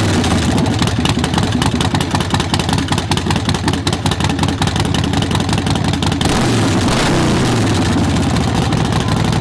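Harley-Davidson Forty-Eight's air-cooled 1200 cc V-twin running through straight, unbaffled Vance & Hines Short Shots pipes, extremely loud. It is blipped twice, near the start and about six seconds in, and the revs fall back to idle each time.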